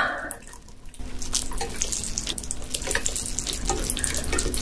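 Wet splashing and crackling as live ice gobies and their water slide out of a stainless mesh strainer onto a plate. It starts about a second in and carries on as a steady watery pour full of small wet clicks.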